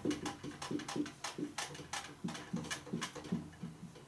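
Whiteboard marker squeaking and scraping across the board in short strokes, several a second, as characters are written.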